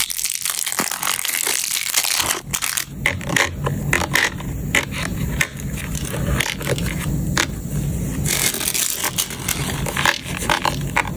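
Batteries being handled and set one by one into a plastic storage case: a steady run of small clicks and clattering, with rustling plastic in between.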